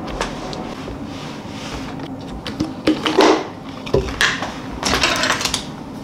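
Small clicks, taps and rustles of a clear plastic food container and its lid being handled and set down on a kitchen counter, over a steady low hum.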